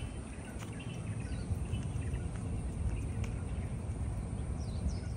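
Outdoor ambience: an uneven low rumble, with scattered bird chirps and a couple of quick downward-sweeping calls near the end, over a thin, steady, high-pitched insect drone.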